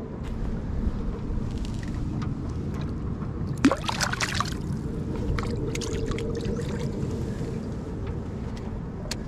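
A bass lowered by hand into the river splashes back into the water, a short splash about three and a half seconds in. A steady low rumble and a few light clicks run underneath.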